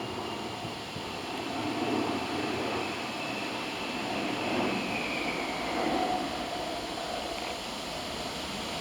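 Distant engine noise over outdoor wind, with a faint high whine that falls in pitch about five seconds in.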